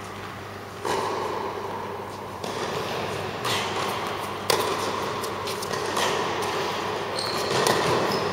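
A tennis ball being struck by rackets and bouncing on an indoor hard court: a series of sharp knocks about a second or so apart, the sharpest about halfway through, each echoing in a large hall.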